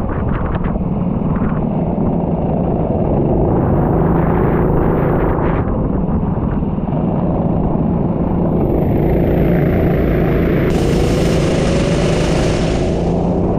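Racing vehicle's engine running steadily at speed, its pitch climbing slowly in the second half. A hiss joins about eleven seconds in and fades near the end.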